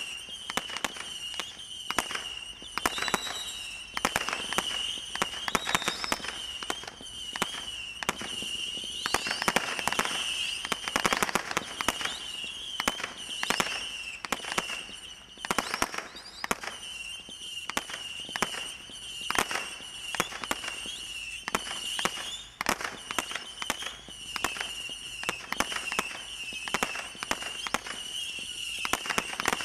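Brothers Pyrotechnics Night Bugs combination roman candle firing: a continuous high, wavering whistle from its effects, breaking off briefly about halfway, over a steady run of sharp cracks and pops.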